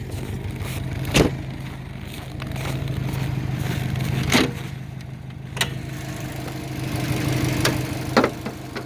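Warmed-up Subaru EJ205 turbocharged flat-four idling steadily, with a few sharp clicks scattered on top. The knock it makes from cold has gone now that it is warm, as the owner judges it.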